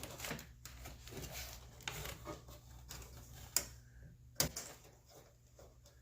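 Small clicks, taps and scraping of hands working a door latch rod and its plastic retaining clip inside a car door, with two sharp clicks at about three and a half and four and a half seconds in.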